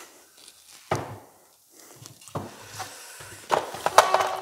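Handling noises on a workbench: a sharp thump about a second in, another knock a little past two seconds, then a run of clicks and rattles near the end as parts and wires are handled.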